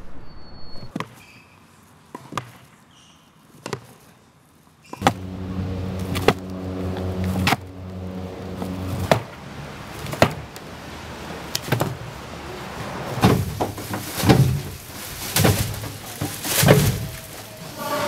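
Hollow knocks of a plastic trash can striking the ground as someone shuffles and hops along inside it, a few at first, then one every second or so. About five seconds in, a steady low drone starts under the knocks.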